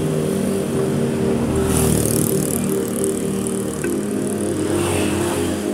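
Road traffic passing: a small truck and motorbikes going by, their noise swelling about two seconds in and again near the end, with steady background music.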